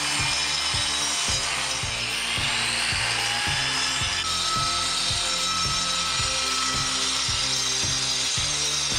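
Angle grinder running, its whine rising as it spins up about two seconds in, over a fast, even, rhythmic clatter.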